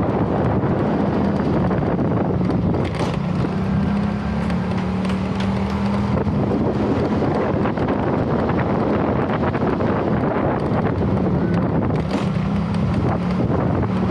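A vehicle's engine running steadily on the move, a hum that weakens a little in the middle and comes back near the end, under heavy wind noise on the microphone.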